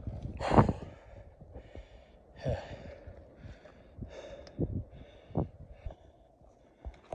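A hiker breathing hard close to the microphone, about one breath a second, with footsteps crunching on a gravel trail.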